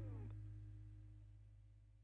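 The background music ending and fading out: a held electric guitar chord slides down in pitch at the start, then a faint low note and hum die away.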